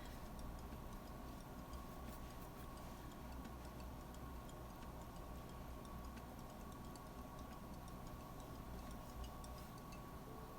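Faint quick ticks over a steady low hum.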